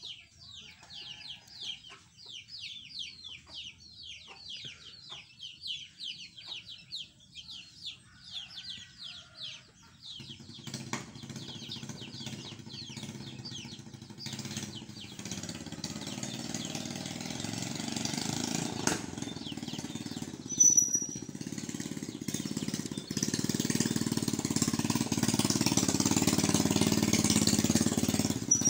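Chicks peeping in a quick run of short, falling peeps for about the first ten seconds. Then the steady noise of an engine sets in and grows louder toward the end, with one sudden knock about two-thirds of the way through.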